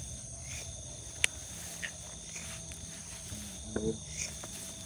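Steady chorus of crickets and other night insects trilling, with a single sharp click a little over a second in.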